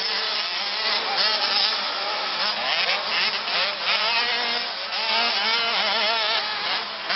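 Two-stroke 85 cc motocross bike engines revving up and down, several at once, their pitches rising and falling as riders work the throttle.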